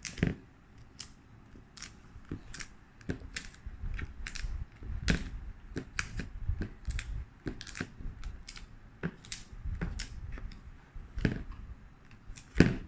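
Irregular sharp clicks and taps, roughly one or two a second, with low rubbing noise in between: hands handling a smartphone and the plastic pieces of a screen-protector kit while cleaning dust from the screen. A louder click comes near the end.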